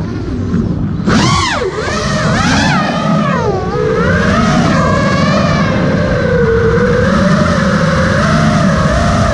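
FPV racing drone's motors and propellers whining. The pitch swings sharply up and then down about a second in, as the throttle is punched and cut, and then wavers more gently around a steadier pitch.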